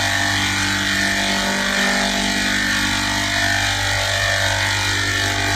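A steady machine drone: a constant hum with several fixed tones over a hiss, holding the same pitch and level throughout.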